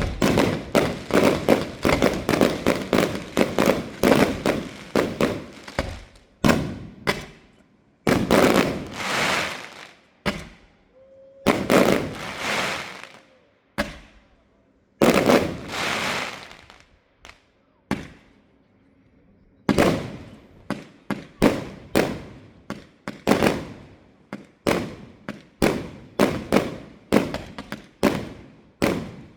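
Fireworks display: a fast volley of sharp bangs, then three longer bursts with crackling, hissing tails in the middle. After a short lull, another rapid run of bangs follows.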